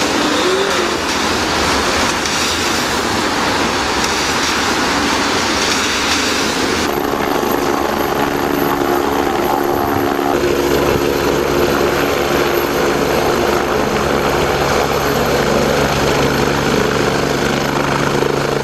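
Police cars driving on a wet road, a steady rush of engine and tyre noise. About seven seconds in it cuts abruptly to a helicopter flying close by, a steady turbine whine and rotor hum with several fixed tones.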